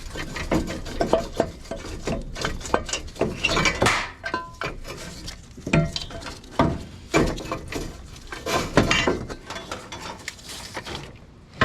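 Irregular metallic clinks, clanks and scrapes of hand tools working on bolts and parts.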